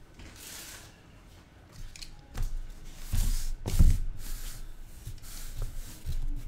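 A sealed case of trading-card boxes being opened and unpacked: soft cutting and scraping sounds, then several thumps as boxes are handled and set down, the loudest a little under four seconds in.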